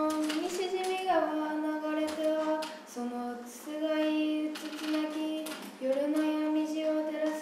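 A girl's voice chanting a line of classical Japanese drama in a slow sung style: long held notes that step and slide between pitches, in a few phrases with short breaks between them.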